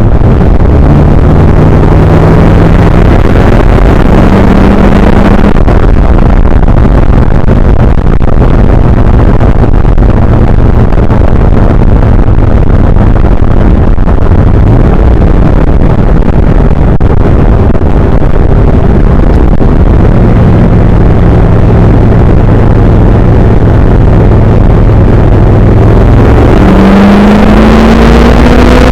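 A car driving: engine and road noise, recorded overloaded and harsh. The engine note holds steady for most of the time, then rises near the end as the car accelerates.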